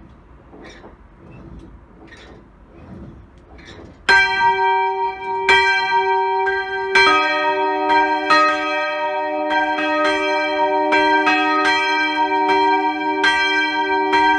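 Swinging church bells in a wooden belfry: after a few faint regular knocks, one bell starts to strike about four seconds in, tolling about every second and a half with long ringing, and a second, lower-pitched bell joins about three seconds later.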